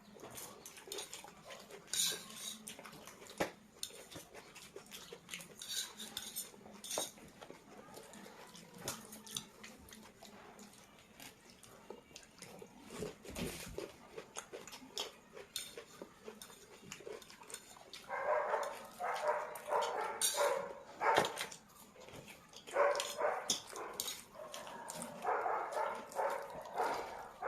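Eating from a plate: scattered clinks of cutlery and dishes. From about two-thirds in come repeated, louder bursts of another sound.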